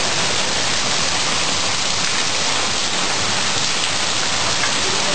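Heavy thunderstorm rain pouring down in a steady, even downpour.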